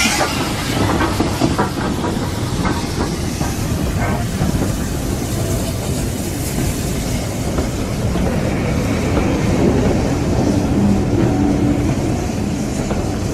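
Steam train running into the station: a loud, steady rumble of wheels on track, with clacks over the rail joints in the first few seconds and a hiss of steam that fades early on.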